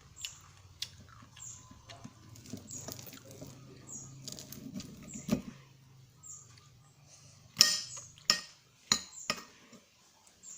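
A child eating fried catfish: wet mouth smacks and chewing, with several sharper, louder clicks between about seven and nine and a half seconds in.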